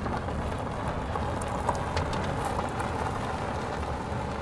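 Steady outdoor noise: a continuous low rumble with faint crackles and ticks over it.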